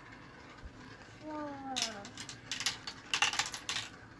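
Marbles clattering down a plastic marble run, a quick irregular stream of clicks and rattles starting a little under two seconds in. Just before it a short voice falls in pitch.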